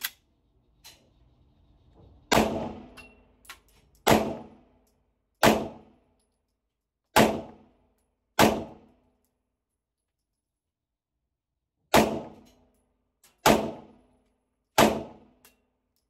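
Eight single shots from a compensated Canik TTI Combat 9mm pistol, each a sharp crack with a short ringing tail off the range walls, spaced about one to two seconds apart with a pause of about three and a half seconds after the fifth.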